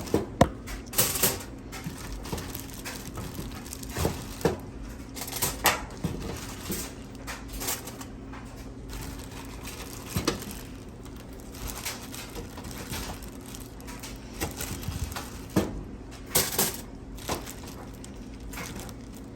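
Kitchen utensils and dishes being handled: irregular clicks, taps and clatters, several close together near the start and again about two-thirds of the way through, over a steady low hum.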